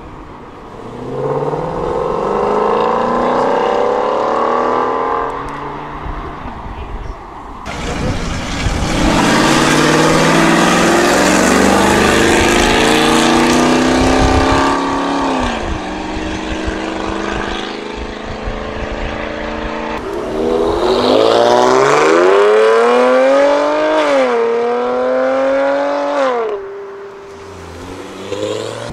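Muscle cars accelerating hard away from a car meet, the engine note climbing with revs. A loud, rougher full-throttle run starts suddenly about a quarter of the way in and falls off about halfway. Near the end another car pulls away, its pitch rising, dipping once at a gear change, then rising again before it lifts off.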